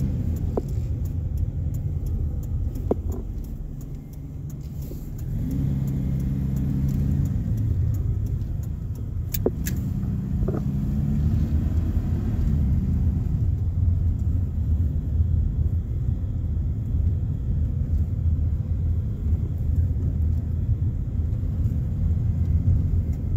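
Car engine and road noise heard from inside the cabin while driving, the engine note rising and falling twice as the car pulls away and accelerates. A few sharp clicks sound over the steady rumble.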